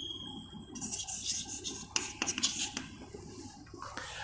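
Chalk writing on a blackboard: a scatter of short scratches and taps as a line of text is finished, over a low steady room hum.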